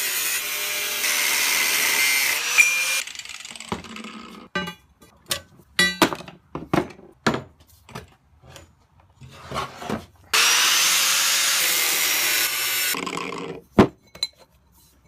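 Power tool cutting in two runs of about three seconds each, with knocks and clatter of handling in between.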